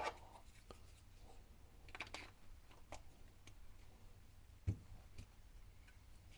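Faint clicks and light handling noises, with one short soft knock about two thirds of the way through, over a low steady room hum.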